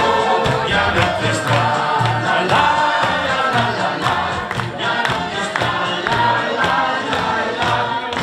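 A carnival song with a group of voices singing along over a steady beat.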